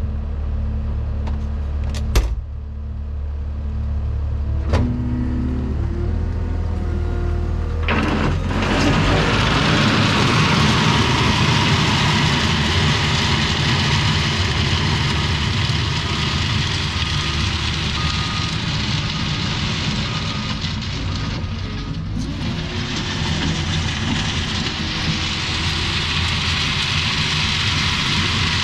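Cat 299D3 compact track loader's diesel engine idling, with a couple of sharp clicks in the first few seconds. About eight seconds in the engine revs up and the loader drives off over the gravel, a loud steady mix of engine, hydraulics and track noise pushing and spreading gravel.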